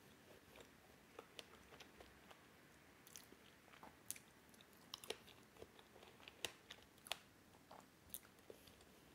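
A person chewing a mouthful of eierkoek, whipped cream and strawberry close to the microphone: a scatter of short, soft wet clicks, busiest in the middle.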